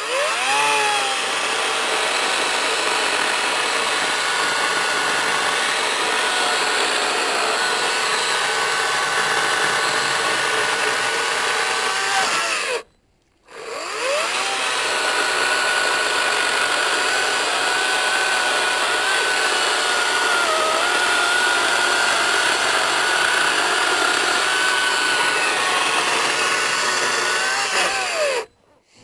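Echo DCS-5000 56V battery chainsaw running and cutting through a log: a steady electric whine that rises as the chain spins up and falls away near the end. There are two long cuts with a brief break about halfway.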